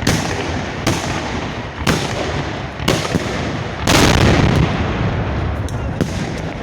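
Salute fireworks going off at close range: loud, sharp reports about once a second, each trailing off in an echo. The biggest comes about four seconds in, then a pause of a couple of seconds before another shot near the end.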